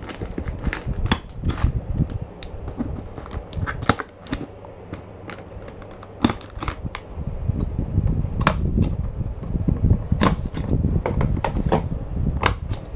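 Hand stapler clicking as staples are driven into the corners of a cardboard model-kit box: a string of sharp snaps at uneven intervals, with the box being handled and a low rumble underneath.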